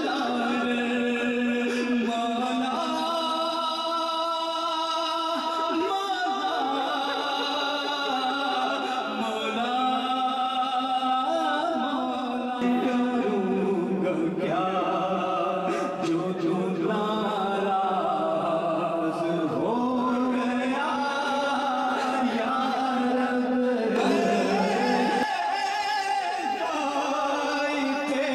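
A man singing a slow devotional chant, holding long, wavering notes that slide from pitch to pitch.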